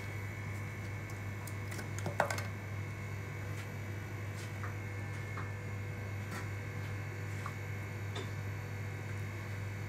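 Small scattered clicks and taps of steel tweezers on the parts of an opened Apple Watch, with one sharper click about two seconds in, over a steady low hum.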